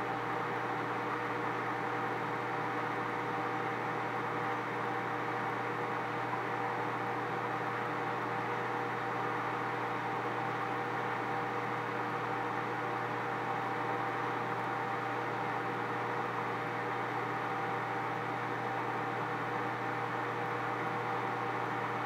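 Countertop microwave oven running mid-cycle: a steady hum and fan whir that stays unchanged throughout.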